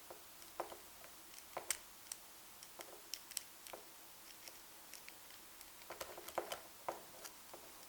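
Faint, irregular metallic clicks and scrapes of a hook pick and tension wrench working the pins of a transparent practice lock, as the pins are pushed up one by one.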